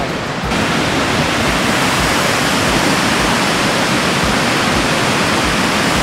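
Loud, steady rush of water pouring over a dam spillway and churning into white water below, growing fuller and brighter about half a second in.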